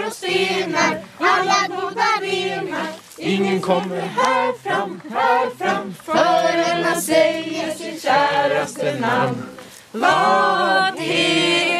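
Several voices singing a song together without instruments, with a man's voice close to the microphone.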